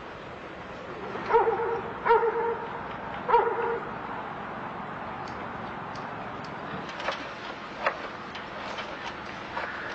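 A dog barks three times, about a second apart. A few sharp clicks follow later.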